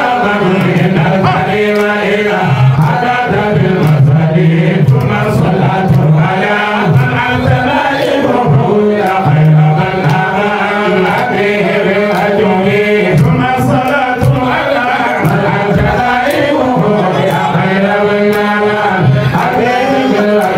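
A man's voice chanting a religious song into a microphone, steady and continuous.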